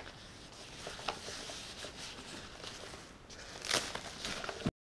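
Plastic wrapping on a model airplane wing rustling and crinkling as it is handled and pulled off by hand, with a louder rustle near the end. The sound cuts off suddenly just before the end.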